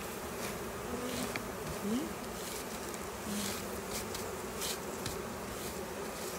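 Honeybees buzzing around an open hive: a steady hum of many beating wings, with single bees buzzing past, one rising in pitch about two seconds in. A lot of buzzing like this is the sign of a busy, active colony.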